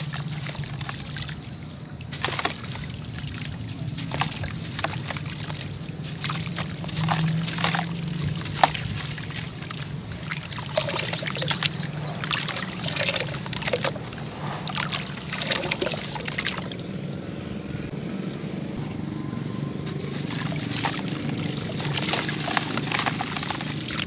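Hands sloshing and squeezing in a basin of muddy water, breaking up a soaked sand-and-cement block into wet sludge: irregular splashes and drips. The block is wet through, so it breaks up soft and mushy instead of crunching.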